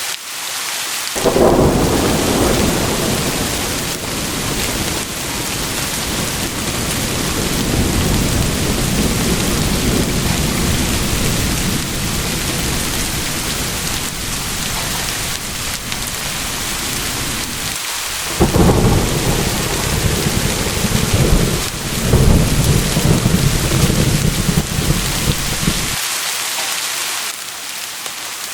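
Thunderstorm: steady rain hissing throughout, with rolling thunder. One long rumble begins about a second in and rolls on for many seconds; after a brief break a second rumble follows, then dies away shortly before the end, leaving rain alone.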